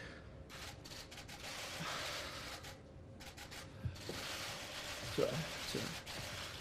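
A man's choked, tearful breathing with two short strained vocal sounds about five and six seconds in, as he fights back tears mid-statement, over press-room camera shutters clicking in rapid bursts.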